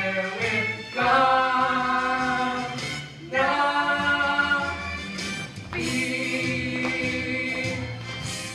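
Live musical-theatre ensemble singing: a man and two women singing together in long held notes over a steady accompaniment.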